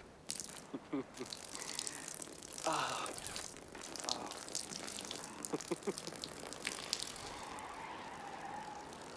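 A thin stream of urine splashing onto gravel, a steady hiss scattered with small clicks.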